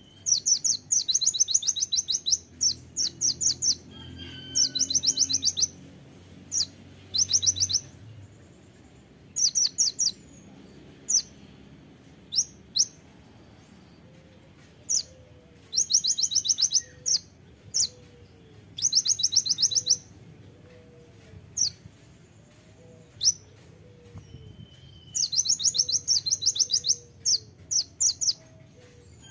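Male kolibri ninja (Van Hasselt's sunbird) singing in its cage: repeated bursts of very rapid, high, sharp trilled notes, each about a second long, the 'tembakan' that keepers prize, with single sharp chips between the bursts.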